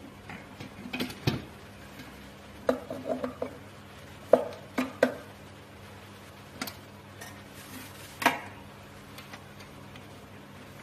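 Sharp metallic clanks and clicks of a stainless steel wire whisk being fitted onto the attachment shaft of a commercial planetary stand mixer. The knocks come in irregular groups, some with a short ring, and the loudest is about four seconds in.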